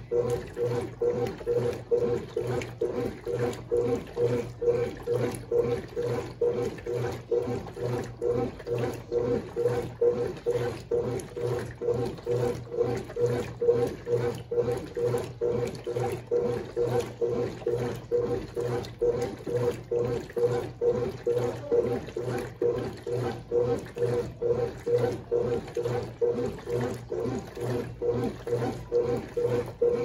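Brastemp Baby Mondial BLK20 top-loading washing machine agitating a load of towels in soapy water. A steady motor hum runs under rhythmic sloshing, about two to three strokes a second.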